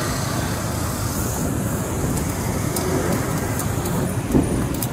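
Steady rumbling noise of road traffic, with one short knock near the end.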